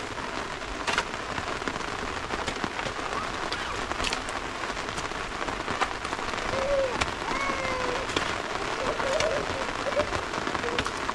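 Steady rain hissing on surfaces, with sharp ticks of single drops striking something close by. A few short, faint pitched calls come through about two-thirds of the way in and near the end.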